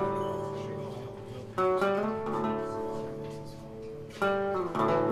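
Background music on guitar: slow chords struck and left to ring out, with new chords about a second and a half in and twice near the end.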